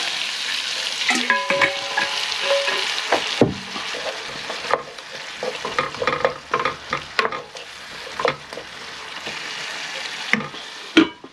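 Onions, garlic and pepper sizzling in a hot pan as pieces of lamb are added and stirred in to brown, the utensil clicking and scraping against the pan. The sizzle drops noticeably about three and a half seconds in, leaving a quieter frying hiss under the stirring knocks.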